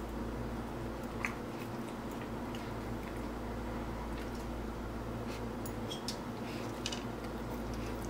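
Basset hound licking and smacking its lips, a few short wet clicks and squishes scattered over a steady low background hum.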